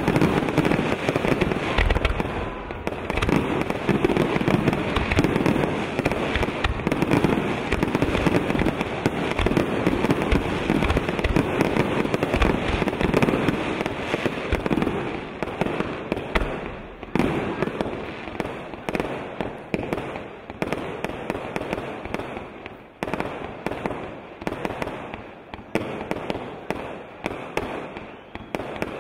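Aerial fireworks display: a dense barrage of overlapping shell bursts and crackling, thinning about halfway through to separate bangs and crackles at a lower level.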